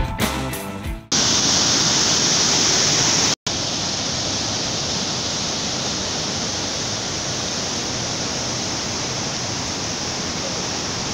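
Guitar-backed music for about a second, cut off abruptly. Then a loud, steady rushing noise of fast-flowing floodwater, with one brief dropout a few seconds in.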